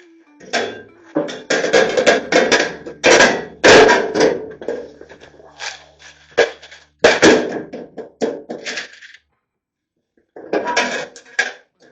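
Irregular metal clanks, knocks and rattles from working on a steel toolbox drawer, with a short pause near the end.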